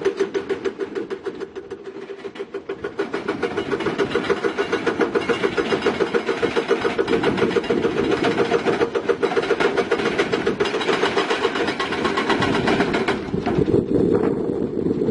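Diesel engine of a heavy crawler machine, excavator or bulldozer, running hard with a fast rhythmic pulse several times a second. It dips briefly about two seconds in, and the pulsing evens out near the end.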